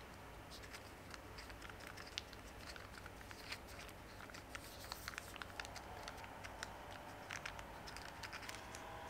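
Clear plastic water squishy being squeezed in the hand: faint, irregular crinkling and crackling of the plastic skin.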